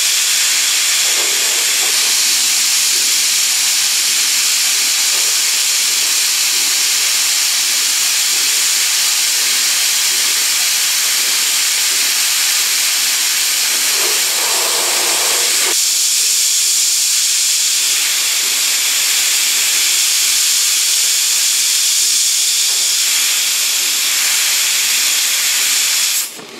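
Coolant spraying inside the enclosure of a Brother Speedio M300X3 CNC mill-turn machine as it machines a metal part: a loud, steady hiss. A brief mid-pitched tone rises out of the hiss twice, about a second in and again about fourteen seconds in, and the sound cuts off suddenly just before the end.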